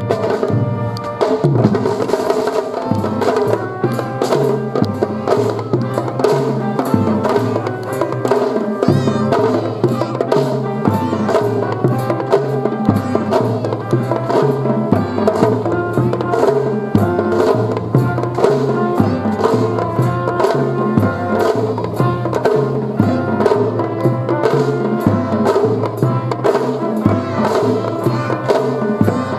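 Children's drum-and-fife band playing a march-like tune, with drums keeping a steady beat under the melodic instruments.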